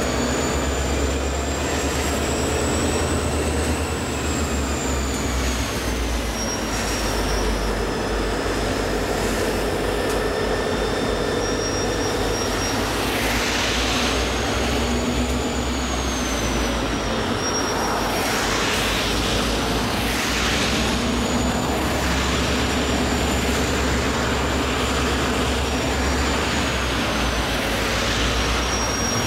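Diesel locomotive (EMD Geep) engine running with a heavy low drone as a work train of gondola cars rolls past. A thin high whine slowly rises and falls over it.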